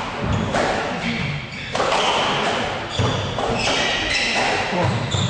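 Squash rally: the ball struck by rackets and thudding off the court walls in irregular hits, with brief high squeaks of shoes on the wooden court floor.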